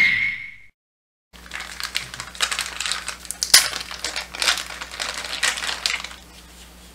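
A title-card sound effect with a ringing tone fades out right at the start, then there is a short gap of silence. After that, a clear plastic packaging bag crinkles in irregular crackles as it is handled and opened, dying down near the end.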